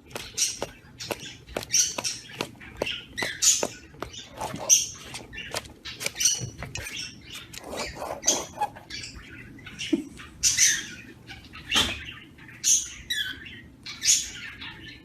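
A parrot chirping and squeaking in short, high, irregular calls, with sharp clicks in between.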